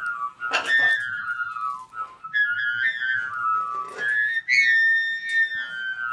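A weird whistle-like tone that slides downward in pitch, repeated about four times in long falling glides, with a couple of short harsh noises about half a second in and near four seconds in.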